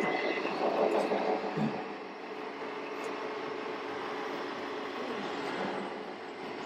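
Radio-controlled Volvo FH model truck with a low-loader trailer driving slowly, a steady engine-like running sound with a faint constant hum.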